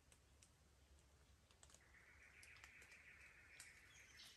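Faint raindrops dripping and ticking irregularly on leaves and leaf litter. A soft hiss rises about halfway through, and a bird starts calling near the end.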